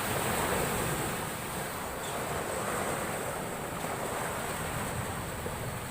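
Heavy storm surf breaking and washing up the beach in a steady rush, swelling slightly near the start and again midway, with wind rumbling on the microphone.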